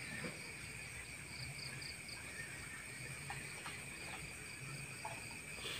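Night insects, crickets among them, trilling steadily at several high pitches. A brief run of short chirps comes about a second and a half in.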